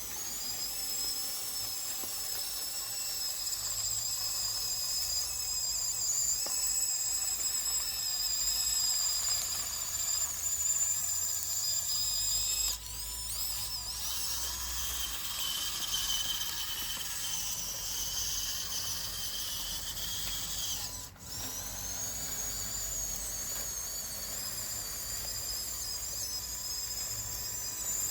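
High-pitched whine of a Huina 1554 radio-controlled bulldozer's small electric drive motors and plastic gearboxes as it works. The pitch shifts slightly as it drives, with brief breaks about 13 and 21 seconds in.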